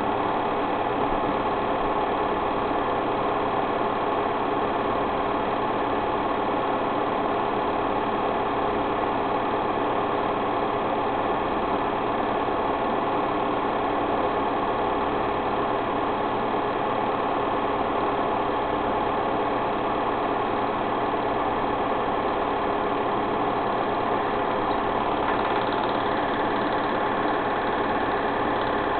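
Steady mechanical running noise from a machine, unchanging throughout, with several steady tones in it.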